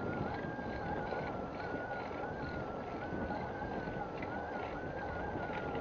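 Wind buffeting the microphone and tyre rumble of a bicycle riding steadily on a paved cycle path, with a thin whine that wavers slowly up and down in pitch.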